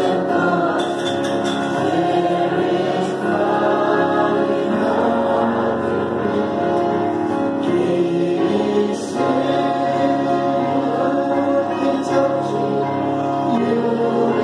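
A congregation of many voices singing a hymn together, holding long, steady notes.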